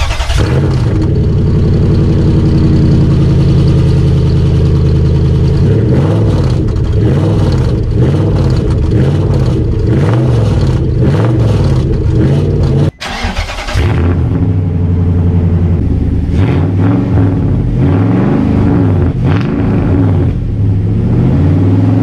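Pickup truck's exhaust, cut open right after the cab with failing catalytic converters, running loud and raw: a steady idle, then revved up and down again and again. After a short break about 13 seconds in, a truck exhaust is blipped up and down repeatedly.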